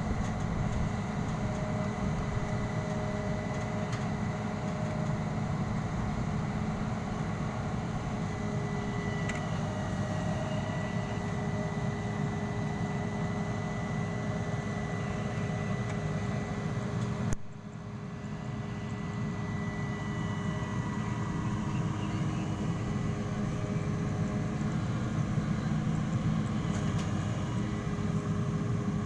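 SANY rotary drilling rig running steadily, its diesel engine and hydraulics working while the mast is raised upright. A little past halfway there is a sharp click and the sound briefly drops, then builds back up.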